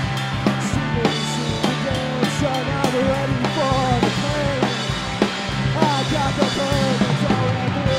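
A three-piece rock band playing live: electric guitar, electric bass and a Slingerland drum kit keeping a steady beat, with a melody line that slides and bends in pitch over it.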